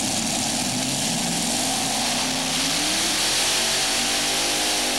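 Modified pulling tractor's multiple open-stacked racing engines running hard under load as it drags the weight-transfer sled. Their pitch climbs about halfway through, then holds high.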